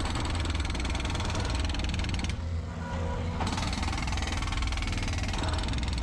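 Skid loader engine running steadily, with a fast, even clattering pulse and a deep rumble.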